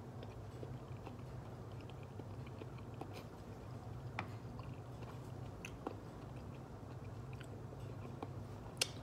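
A person chewing a mouthful of roasted potato, with faint clicks of a metal fork in a plastic meal tray and one sharp click near the end, over a steady low background hum.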